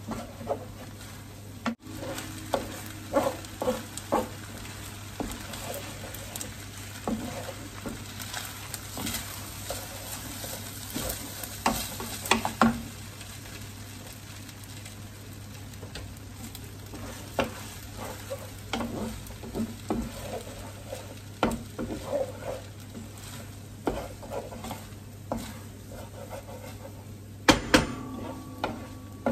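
Wooden spatula scraping and knocking against a large frying pan as fried rice is stirred and turned over a high gas flame, with a steady sizzle underneath.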